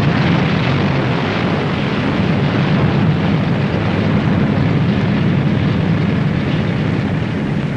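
Boeing B-17 Flying Fortress's Wright Cyclone radial engines running steadily on the ground: a loud, even engine drone with a deep hum under it.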